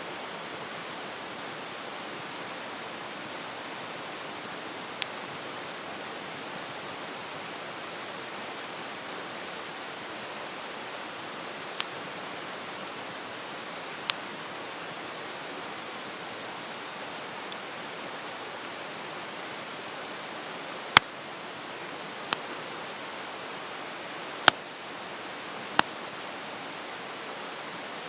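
Wood campfire burning: a steady hiss with sharp crackling pops now and then, about seven in all, the loudest two about three quarters of the way in.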